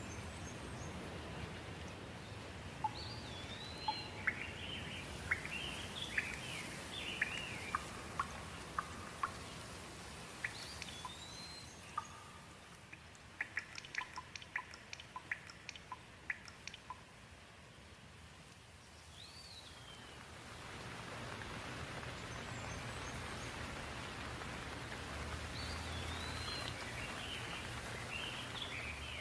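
Birds chirping in short rising and falling calls over a steady hiss of rain. About halfway through comes a quick run of sharp drips while the hiss drops away, then the rain hiss swells back up for the last third.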